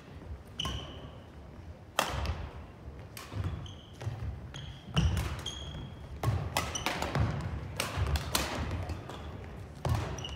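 Badminton rally on a hardwood gym floor: sharp cracks of rackets striking the shuttlecock, thudding footsteps and short high sneaker squeaks, about a dozen impacts over the span.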